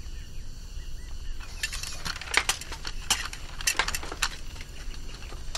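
Swords being lowered: a scattering of quick metallic clinks and rattles over about three seconds, starting a second and a half in.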